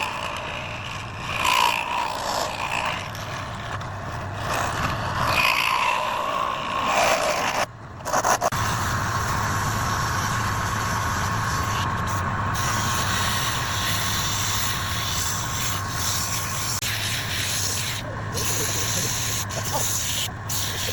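Wood lathe running with a steady motor hum while a tool rubs against the spinning coconut-shell workpiece. The sound drops out briefly about eight seconds in, then carries on steadily.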